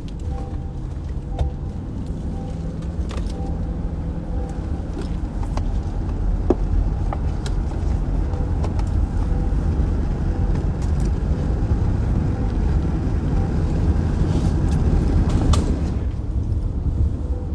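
Car driving, heard from inside the cabin: a steady low rumble of road and engine noise that grows a little louder toward the end.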